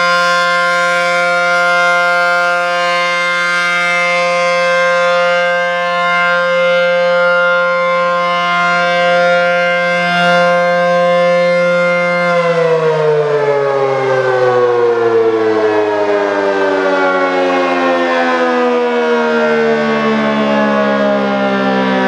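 ACA P-10 dual-tone civil defense siren sounding its steady alert tone, then winding down about halfway through, the whole chord falling steadily in pitch as the rotor slows at the end of its four-minute alert signal.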